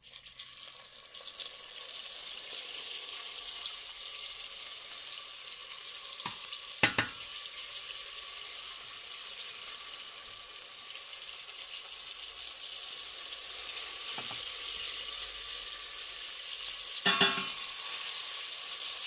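Rice-paper spring rolls deep-frying in hot oil in a stainless steel pot: a steady sizzle that starts as the first roll goes into the oil. A metal slotted spoon clinks against the pot a few times, loudest about seven seconds in and again near the end.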